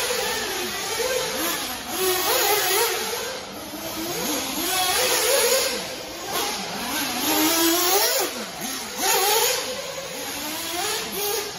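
Radio-controlled off-road buggy running laps on a dirt track, its motor's pitch rising and falling again and again as the throttle is opened and closed through the corners.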